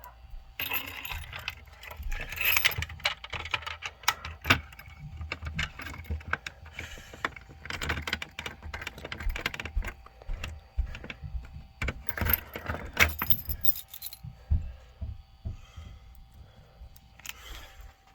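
Irregular jangling and clinking of small hard pieces being handled, most likely the fragments of a fire alarm pull station's broken glass break rod being gathered. The rattling starts about half a second in, is busiest up to about 14 s, then comes in short bursts near the end.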